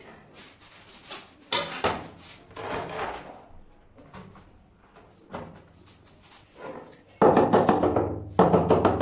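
Trowel scraping and patting cement mortar onto the back of a large ceramic wall tile, then the tile being set and pressed against the wall, with irregular scrapes and knocks and two louder stretches near the end.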